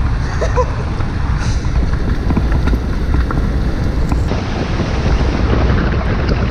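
Wind rushing over the microphone while moving, a loud steady low rumble with buffeting.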